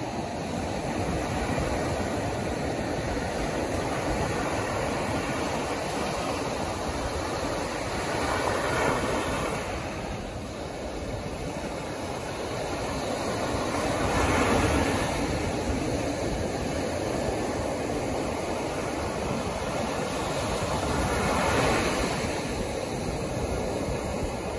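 Ocean surf breaking on a sandy beach: a steady rush of water, with a louder wave crash three times, each about six or seven seconds after the last.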